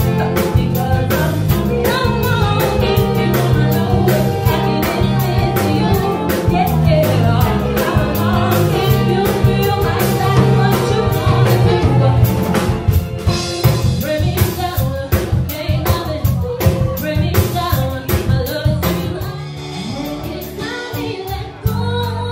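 Live band playing: a female lead singer and a female backing singer over electric bass and drum kit. The band gets quieter about nineteen seconds in.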